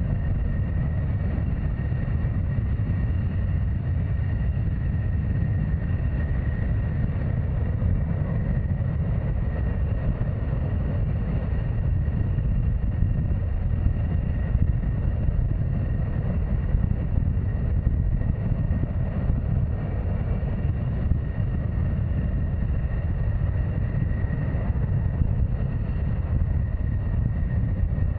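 F-35A Lightning II jet engine running at steady power: a heavy, even rumble with a thin steady whine above it, neither rising nor falling.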